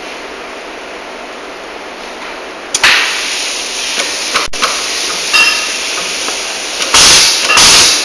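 Pin crimping machine starting up about three seconds in as its control-panel buttons are pressed, then running with a steady mechanical noise, a few short clicks and beeps, and loud bursts near the end.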